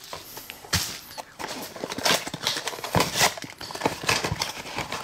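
Handling noises of a small cardboard blind box being opened: irregular taps, knocks and light cardboard rustling.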